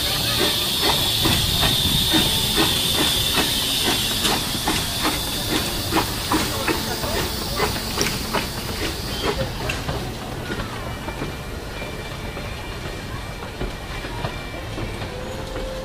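Small metre-gauge steam tank locomotive and its coaches rolling slowly past, with steam hissing steadily and a rhythmic clicking about twice a second. Both fade about ten seconds in as the coaches go by and the locomotive moves off.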